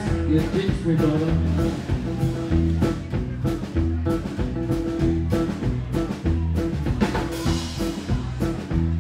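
Live rockabilly band playing an instrumental stretch: electric guitar, upright bass, acoustic guitar and drum kit, with a steady beat.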